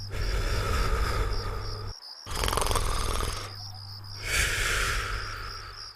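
Cartoon snoring: three long, rasping snore breaths one after another, the last with a higher whistling edge, over a steady chirping of crickets.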